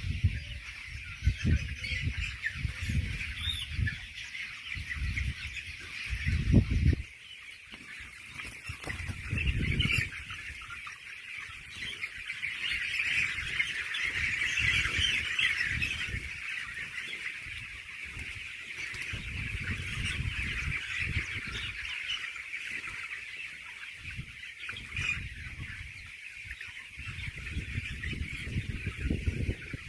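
A flock of broiler chickens calling in a dense, continuous chatter, with intermittent low rumbles that are strongest in the first seven seconds.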